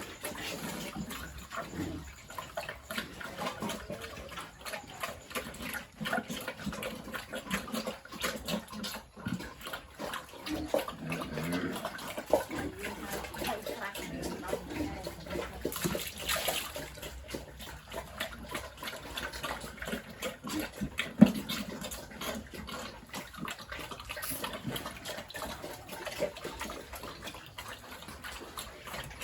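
Water splashing and sloshing, with scattered clicks and knocks and one sharper knock about two-thirds of the way through.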